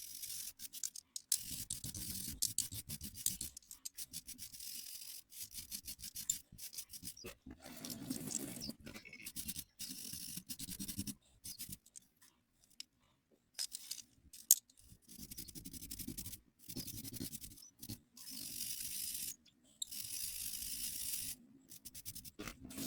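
Repeated hand scrubbing strokes on the metal of old pliers, coming in bursts of a few seconds with short pauses between.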